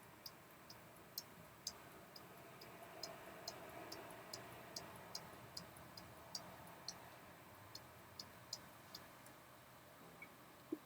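Kailh mechanical keyboard switches pressed one after another for a sound test: a steady run of short, light, high clicks, about two to three a second, that stops about nine seconds in.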